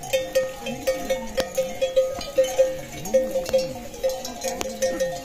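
Livestock bells on a grazing herd of water buffalo, clanking at uneven intervals several times a second as the animals move and feed.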